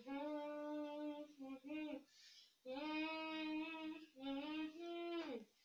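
A boy singing unaccompanied: three long-held phrases, each sliding down in pitch at its end, with a breath about two seconds in.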